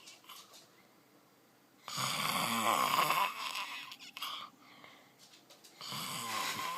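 Loud snoring: two long snores, one about two seconds in lasting over a second, and another starting near the end, with quieter breathing between.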